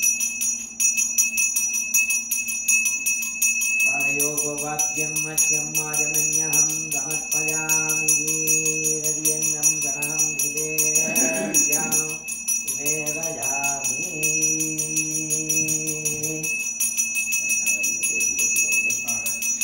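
Temple bell ringing fast and continuously. About four seconds in, a melody of held, pitched notes joins it and stops again after about twelve seconds.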